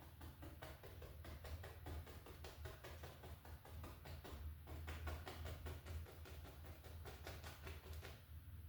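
A paint-loaded brush tapped rapidly against a stretched canvas, several dry taps a second, with a short break about halfway and stopping shortly before the end. A steady low hum runs underneath.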